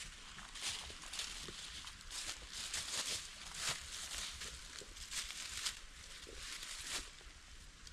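Footsteps through dry leaf litter on the forest floor: irregular crackling steps, one or two a second, that stop about seven seconds in.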